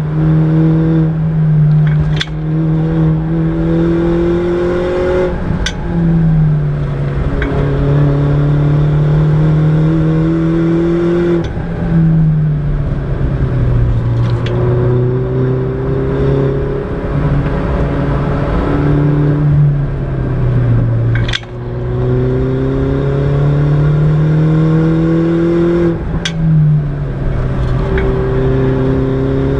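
Mini John Cooper Works R56's 1.6-litre turbocharged four-cylinder engine pulling hard through corners, heard from inside the cabin. The engine note climbs slowly and drops sharply about four times as gears change, with a brief lift of the throttle about two-thirds in and a few sharp cracks now and then.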